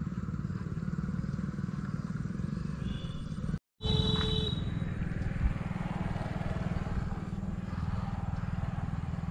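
Steady low rumble of wind buffeting the microphone outdoors, cut off for a split second about four seconds in, with a brief high tone just around the break.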